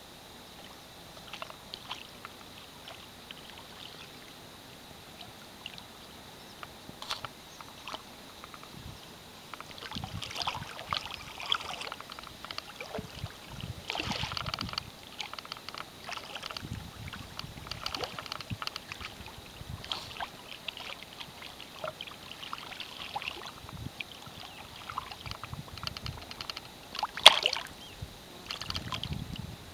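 A hooked fish splashing at the water's surface in irregular bursts as it is played on a fly rod, with one sharp, loud splash near the end.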